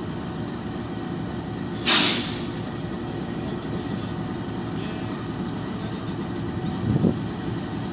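Diesel locomotive hauling a passenger train, its engine running steadily as it pulls slowly away. About two seconds in there is a loud half-second hiss of air, and near the end a short low knock.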